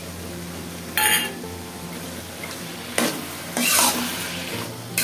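Metal spatula scraping and stirring thick bottle gourd curry in an aluminium karahi. There is a short scrape about a second in and a longer run of scrapes around three to four seconds in, over a steady low hum.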